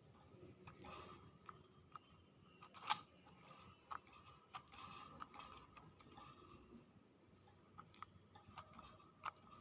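Near silence broken by scattered faint clicks and ticks, with one sharper click about three seconds in and another near the end.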